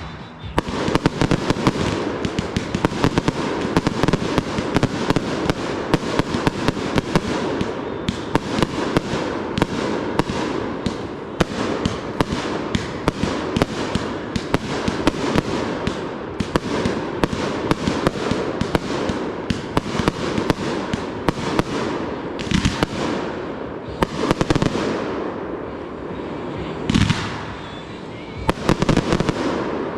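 Consumer fireworks going off in a dense barrage: rapid bangs several times a second over continuous crackling, with a few heavier, deeper booms near the end.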